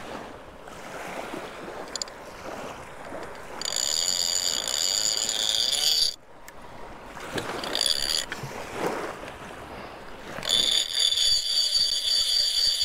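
Conventional big-game reel screaming as a hooked fish strips line off against the drag: a fish has taken the bait and is running. A high-pitched whine runs for about two and a half seconds, cuts off, and starts again about two-thirds of the way in, carrying on to the end.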